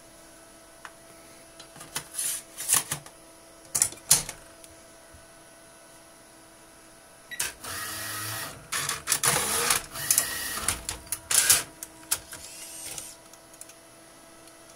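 IBM 3995 C40 optical library's disc-handling picker moving under test: bursts of motor whirring and mechanical clacks about two to four seconds in, then a longer run from about seven to thirteen seconds, over a steady hum.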